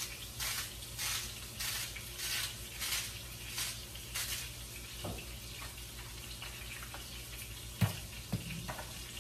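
Salt being dispensed over ground turkey in a frying pan: a run of short rasping strokes, about one and a half a second, for the first four seconds or so. A steady low hum lies underneath, and there are two sharp clicks near the end.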